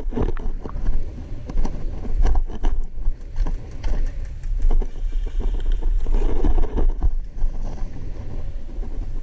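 Steady low rumble and rustle on the camera's microphone, with scattered, irregular clicks and knocks.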